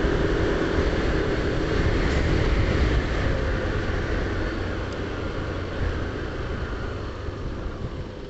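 A Yamaha NMAX scooter's engine humming under wind noise on a helmet-mounted microphone while riding at low speed, growing quieter toward the end.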